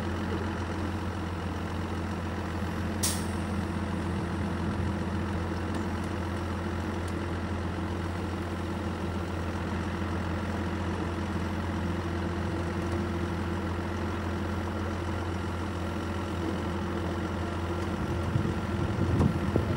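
Heavy diesel truck engine idling steadily, with one brief sharp click or hiss about three seconds in and louder, uneven low sounds near the end.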